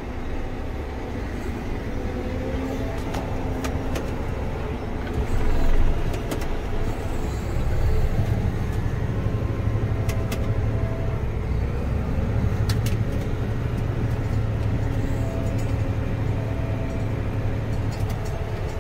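John Deere 9620R four-wheel-drive tractor's engine heard from inside the cab, running steadily as it pulls a grain cart across the field, a little louder from about eight seconds in. A few light clicks from the cab are heard over it.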